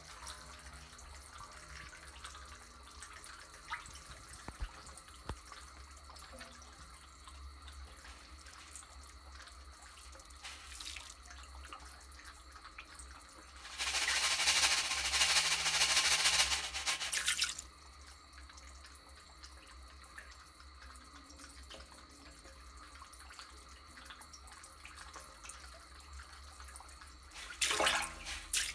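Steady trickle of water at a catfish pond. About 14 seconds in comes a loud, hissing patter lasting about three and a half seconds as floating feed pellets are scattered onto the water. Near the end a run of sharp splashes and clicks begins.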